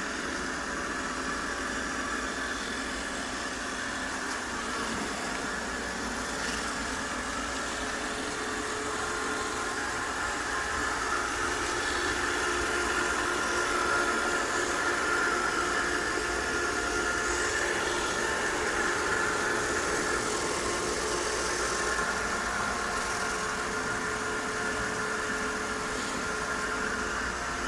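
Robot vacuum cleaner running: a steady motor hum and whine with a constant suction hiss. It grows slightly louder around the middle.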